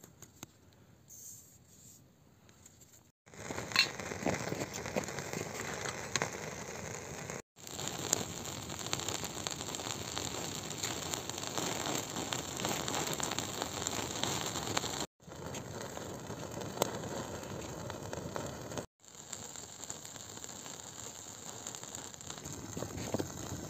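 Twig-and-branch campfire crackling with dense sharp pops, after a few faint seconds at the start. It breaks off abruptly three times for an instant.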